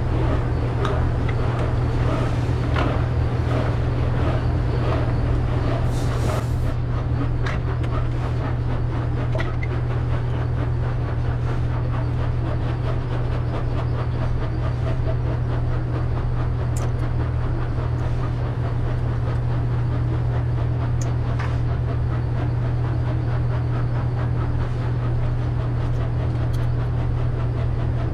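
Steady low machine hum of barn machinery, with light clicks and handling noises, busier during the first several seconds.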